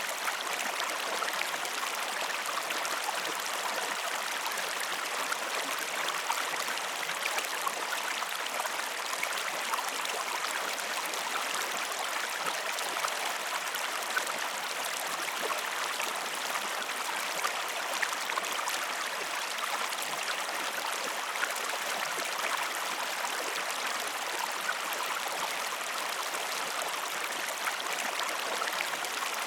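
Steady rushing and babbling of a flowing stream, an even wash of water noise with fine crackling detail throughout.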